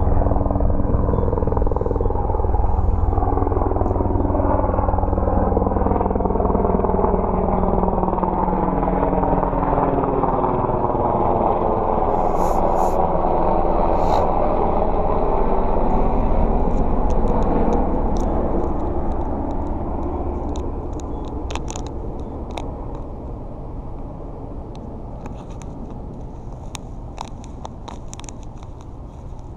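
An engine passing by: loud and steady for the first half, then fading away gradually from about eighteen seconds in. Scattered light clicks come in the second half.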